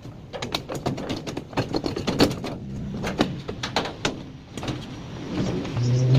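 Clicks, clanks and knocks of hand tools and metal parts while a tumble dryer's motor and fan housing is being taken apart. Near the end comes a short low buzzing whir that rises slightly in pitch as it stops.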